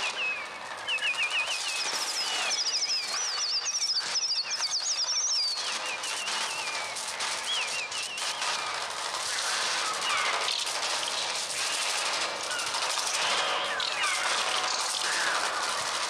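Flock of bird cries, electronically produced on a Mixtur-Trautonium, chirping and twittering in fast wavering trills over a rapid clatter of flapping wings. The trills are densest in the first half and give way to a more blurred mass of screeching and flapping.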